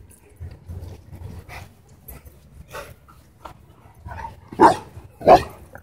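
Dogs at play, with quieter rustling and thuds, then a dog barks twice loudly, close together, near the end.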